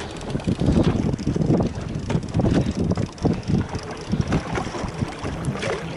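Wind buffeting the microphone over choppy sea water slapping a small boat's hull: an uneven low rumble that gusts up and down, with small irregular knocks.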